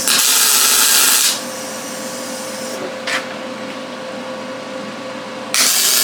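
MIG welder with shielding gas laying two short tack welds: one crackling hiss of about a second at the start, and another beginning near the end, with a brief arc blip between them.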